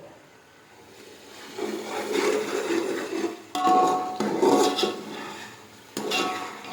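A metal spoon scraping and stirring in a cooking pot of meat masala, in three long strokes, the later two with a slight metallic ring.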